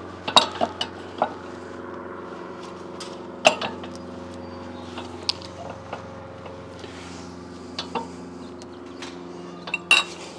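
Scattered metallic clinks and knocks of steel ball joint press adapter cups being handled and sorted, a few ringing briefly, over a steady low hum.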